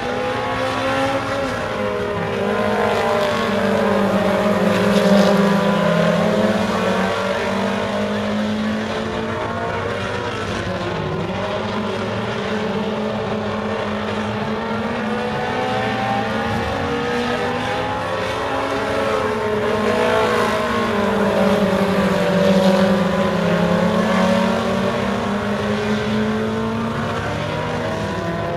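Several four-cylinder super stock race cars running laps on a dirt oval. Their engines rise and fall in pitch together through each lap and get loudest twice, as the pack goes by.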